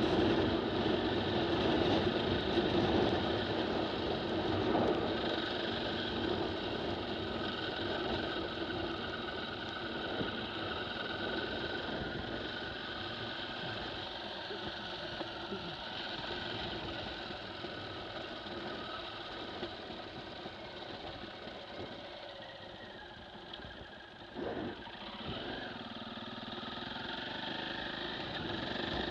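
KTM 450 EXC single-cylinder four-stroke trail bike engine running under way on a stony track, the throttle easing off after about twenty seconds and opening up again near the end, with a brief louder bump about twenty-four seconds in.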